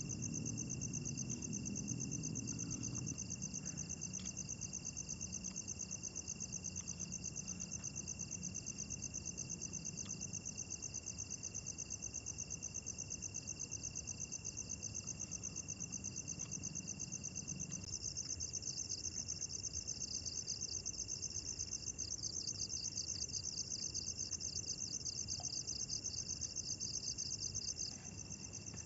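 Night insects calling: a fast, even pulsing trill over a second, steady high-pitched drone. The trill grows louder about two-thirds of the way through.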